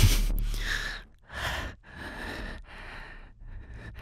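A man's breathy sighs and exhalations, several in a row, after a deep low rumble fades out in the first second.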